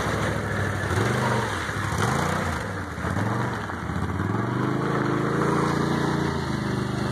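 Four-wheeler engine running, its pitch rising and falling several times as the throttle is worked, then holding steadier from about halfway through.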